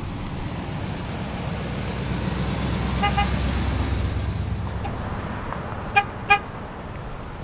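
Vehicles driving past: a full-size SUV goes by close with engine and tyre noise, swelling and fading. A car horn gives a couple of faint quick toots about three seconds in, then two short loud honks about a third of a second apart near the end.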